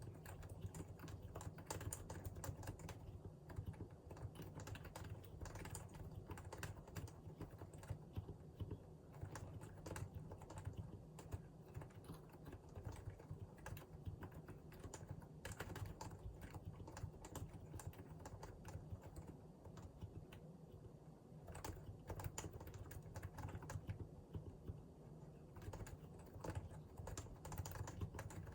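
Steady, fast typing on a Realforce R2 PFU Limited Edition keyboard with Topre electrostatic capacitive switches: a dense run of keystrokes, easing off briefly about two-thirds of the way through.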